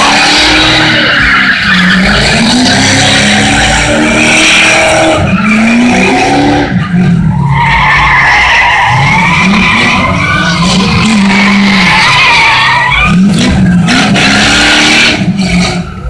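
Cars spinning donuts at a street sideshow: tyres squealing almost without a break, over engines revving up and down again and again. It is loud throughout, with one short lull about seven seconds in.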